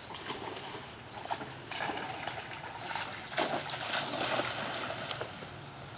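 River water splashing, an uneven splashy noise that comes and goes and is loudest a little past the middle, over a faint low steady hum.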